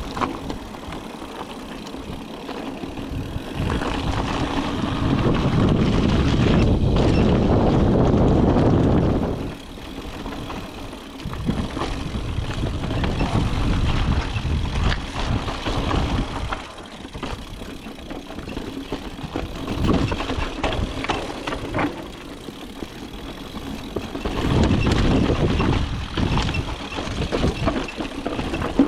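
Mountain bike riding down a trail: tyres rolling over dirt and roots, with many short rattles and knocks from the bike. It grows louder for several seconds starting about four seconds in, and again briefly near the end.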